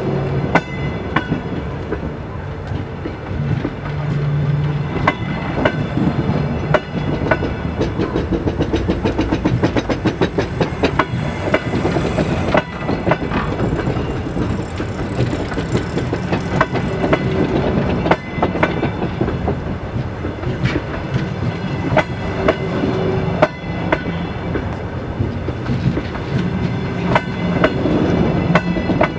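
Double-decker passenger coaches of a departing train rolling past close by: a steady rumble of wheels on rail with frequent irregular clicks and clacks as the wheels cross rail joints and points.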